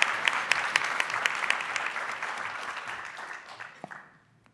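Audience applauding, many hands clapping, dying away about three to four seconds in.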